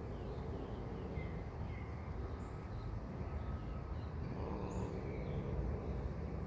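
Outdoor background noise, a steady low rumble, with faint scattered bird chirps.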